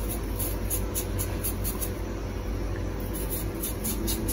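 Kitchen knife paring the skin off a raw potato in short, faint scraping strokes, over a steady low hum.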